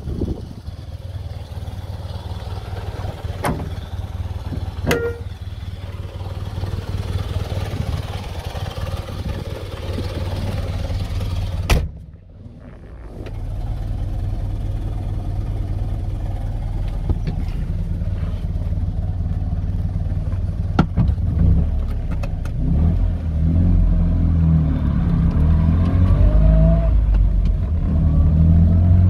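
Polski Fiat 126p's small air-cooled two-cylinder engine running steadily, with a sharp knock about twelve seconds in; near the end it grows heavier and revs up with a rising note.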